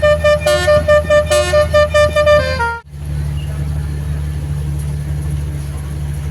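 Basuri telolet musical horn on a motor boat playing a quick tune of short tooting notes, ending on a falling note, over the steady running of the boat's engine. About three seconds in, the horn cuts off abruptly, and after a brief gap only the engine keeps running steadily.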